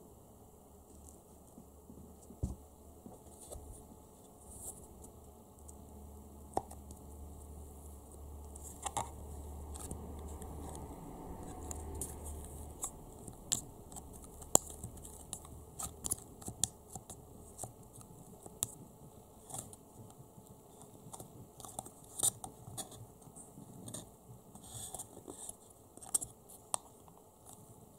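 Fingers and a wooden spoon digging into and tearing apart Play-Doh in a clear plastic cup: soft tearing and squishing, with scattered light clicks and taps against the plastic.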